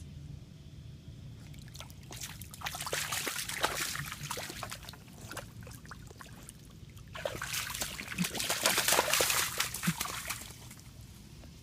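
Bullmastiff puppy splashing in a puddle in two bouts, each a few seconds long, starting about two seconds in and about seven seconds in.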